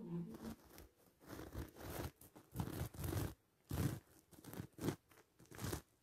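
Footsteps crunching and scraping over rubble and grit, irregular, about one to two steps a second.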